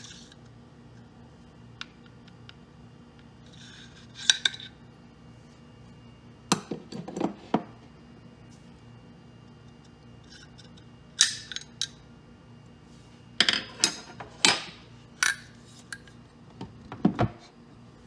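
Irregular metallic clicks, scrapes and clinks of a SIG Sauer M400 AR-15's parts being handled: the charging handle slid out of the upper receiver and pieces moved on the tabletop.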